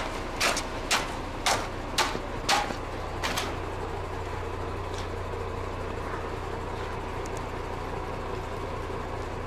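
Concrete truck's engine running steadily. In the first three seconds or so it is broken by a series of about seven sharp knocks, roughly half a second apart.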